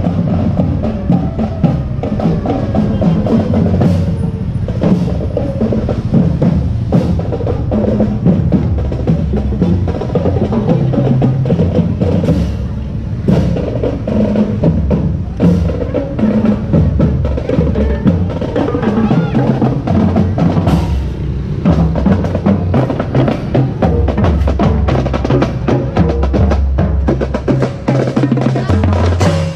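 Percussion-led music: drums keep a steady beat, with many sharp woodblock-like clicks and snare-like strikes over it.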